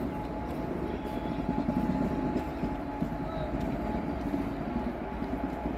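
Railway train running close by: a steady low rumble with a fine rapid clatter, a little louder about two seconds in, over a thin steady whine.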